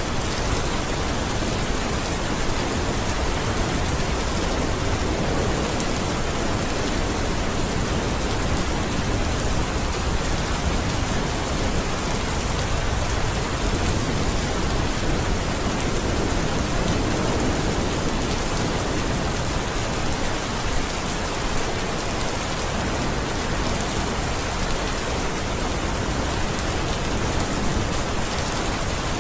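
Steady, heavy rain falling on a surface, a dense even hiss with no let-up.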